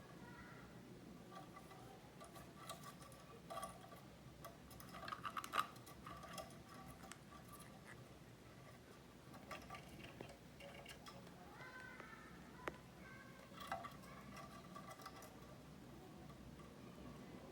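Faint, irregular taps and clicks of a green-cheeked conure's beak working at a foraging toy, with a sharper click about five and a half seconds in.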